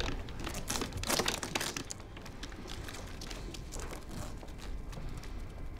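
Rustling, crinkling handling noises, a dense flurry of scratchy rustles in the first two seconds, then fainter scattered ones.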